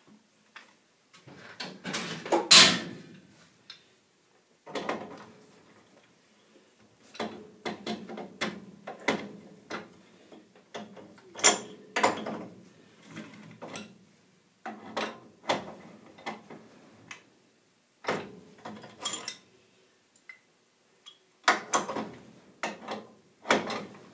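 A wrench tightening a furnace gas valve onto its threaded pipe: irregular metal clicks, clanks and scraping rasps of the wrench jaws shifting and biting on the fitting, in short bursts with brief pauses, the sharpest clank about two and a half seconds in.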